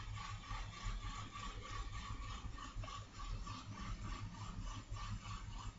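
Faint steady background noise: a low hum and hiss, with a faint tone that pulses rapidly.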